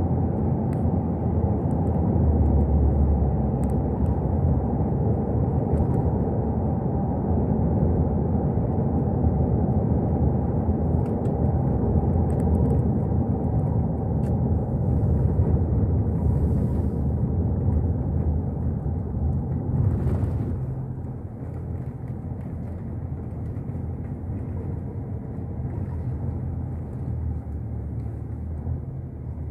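Steady low rumble of a car being driven, engine and tyre noise, which drops in level about two-thirds of the way through.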